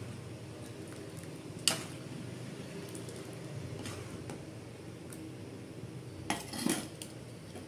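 Metal cookware clinking: one sharp clink about two seconds in and a short run of clinks near the end, against a steel kadai holding sambar. A steady low hum underneath.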